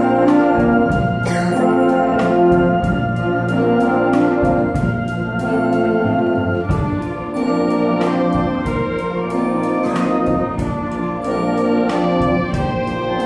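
High school wind ensemble (concert band) playing sustained full chords with a steady beat of short strokes, in an organ-like blend.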